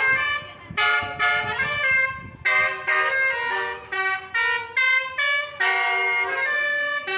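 Telolet bus horn, a set of nine horn trumpets, playing a quick tune: a run of short, loud blasts of several notes at once, changing pitch about every half second with brief gaps between them.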